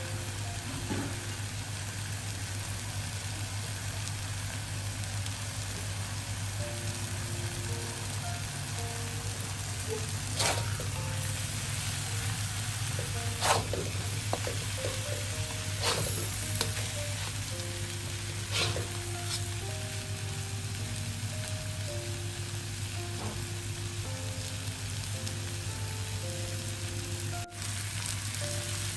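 Food sizzling and frying in a wok while a metal spatula stirs and scrapes through it, with several sharp clinks of the spatula against the wok in the middle stretch, the loudest about halfway through.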